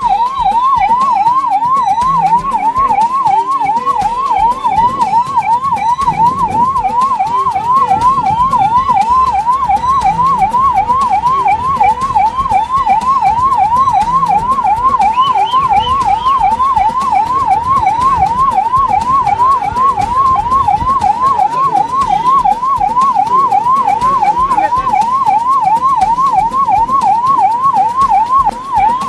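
Ambulance electronic siren sounding continuously, its pitch rising and falling quickly, about twice a second, over a low background rumble.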